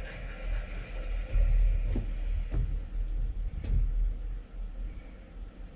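An uneven low rumble, with three sharp knocks about two, two and a half and almost four seconds in as a man gets up and steps on a wooden porch deck.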